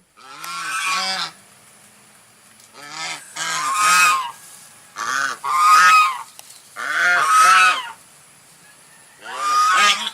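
Swan honking: bouts of loud, repeated calls, each lasting about a second, with short pauses between them.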